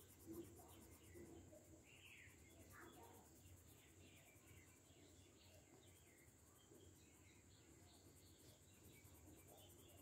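Near silence: faint room hiss with a few soft, scattered short sounds.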